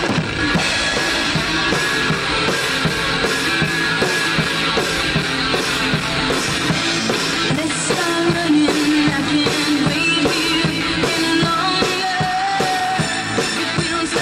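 Rock music with a full drum kit keeping a steady beat under held instrument tones.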